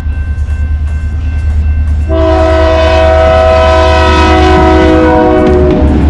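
Canadian Pacific diesel locomotive approaching a level crossing, its engine rumbling low and growing louder. About two seconds in, its air horn sounds one long blast, a chord of several notes at once, that cuts off near the end as the locomotive passes.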